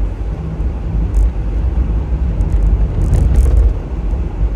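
Steady low rumble of a car's engine and tyres heard from inside the cabin while driving, with a few brief faint clicks about a second and three seconds in.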